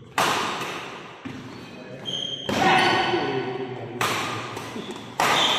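Badminton rally: rackets striking the shuttlecock about five times, every second or so, each hit ringing out in a large hall, with spectators' voices in between.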